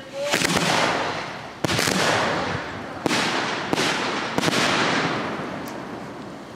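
Aerial firework shells bursting in quick succession: five loud bangs, each trailing off over a second or so.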